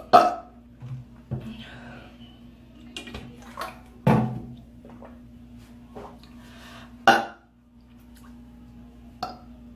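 A woman burping: three short loud burps, just after the start, around four seconds in and about seven seconds in, with a few smaller sounds between.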